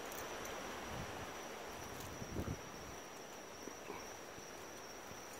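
A dog chewing and tearing at cane grass, the stalks rustling, with a steady high cricket trill behind.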